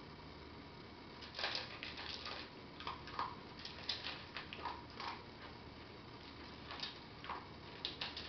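A dog eating dry kibble from a stainless steel bowl: irregular crunching and clicking of kibble against the metal, starting about a second in.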